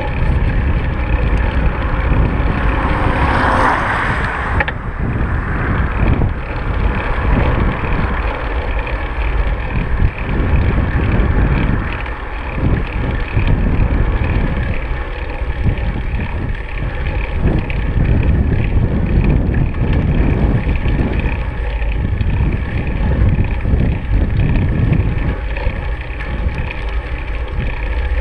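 Steady low rumble of wind buffeting the microphone of a camera mounted on a road bicycle, mixed with road noise from the moving bike. A louder hiss rises for a couple of seconds near the start and cuts off suddenly.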